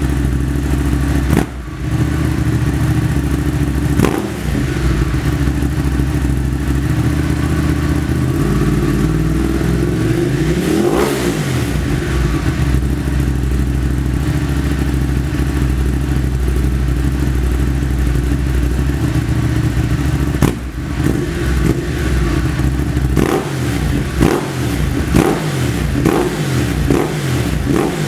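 Ducati Hypermotard 821's 821 cc L-twin engine running through a Termignoni titanium silencer. It idles, is revved up and let fall back once about ten seconds in, and near the end gets a series of quick throttle blips, roughly one a second.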